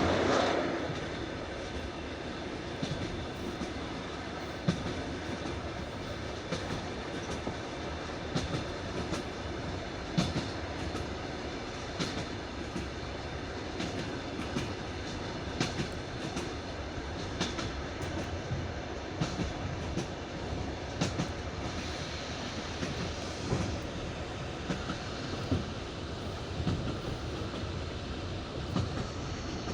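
Passenger train wheels rolling over jointed rail track laid on wooden sleepers, heard from inside the carriage: a steady rumble with the classic clickety-clack of wheels striking the rail joints, short clicks coming every couple of seconds, often in quick pairs. Louder at the very start, easing within the first second.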